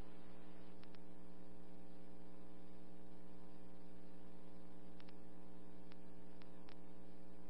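Steady electrical hum from a police radio dispatch recording between transmissions. It is a stack of low tones with a few faint ticks.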